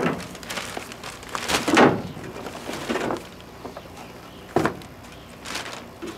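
Cardboard box and packaging being opened and handled: about half a dozen separate scrapes and rustles, the loudest at the start and about two seconds in.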